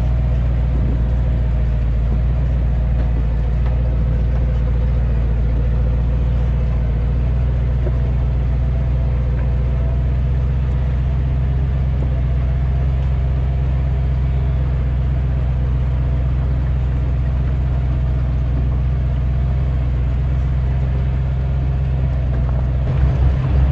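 Truck engine running steadily at low speed, a low even hum heard from the back of the truck. A regular pulsing comes in near the end.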